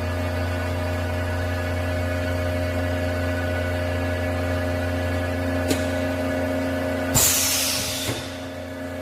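Drawer-type vacuum skin packaging machine running with a steady hum and drone, a single click more than halfway through, then a sharp hiss of rushing air about seven seconds in that fades away over a second, as air is let in or out during the vacuum-sealing cycle.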